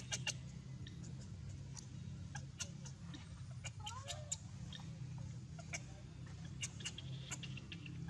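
A monkey's short whimpering call about four seconds in, over scattered sharp clicks and a steady low hum.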